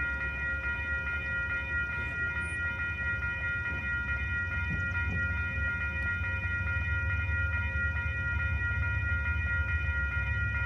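Railway level-crossing warning bell ringing in rapid, evenly repeated strokes, with the low rumble of an approaching Canadian Pacific train building up toward the end.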